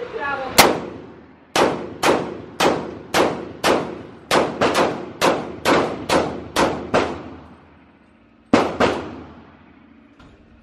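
.40-calibre semi-automatic pistol fired in rapid succession, about fourteen shots at roughly two a second, then two more after a short pause, each ringing out in the indoor range.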